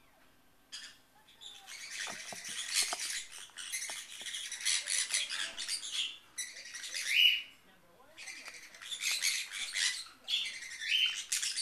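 Baby green-cheeked conure, a cinnamon female, giving harsh, raspy squawks in two long bouts, each ending with a short rising note.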